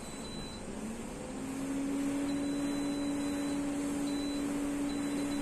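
Electric convection oven starting up: a short touch-panel beep at the very start, then the fan motor kicks in about a second in, its hum gliding up briefly as it spins up and then holding steady.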